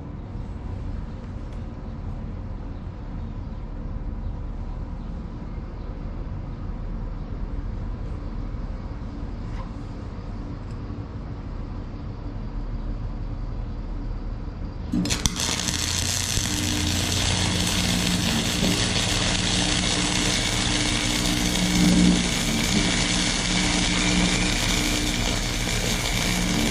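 A steady low hum, then about halfway through the Forney FC125 flux-core welder's arc strikes with a sudden loud crackling hiss that keeps going. It is running hot on the plate-steel setting, melting the steel instead of laying a bead.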